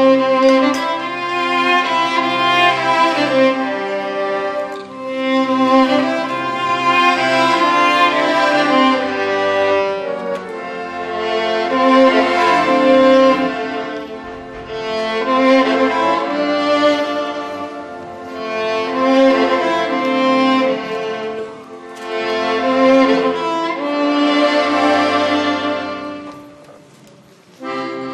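Violin and accordion playing together live, the violin in the lead over the accordion's held notes, in phrases that swell and fall. A short pause near the end before the music picks up again.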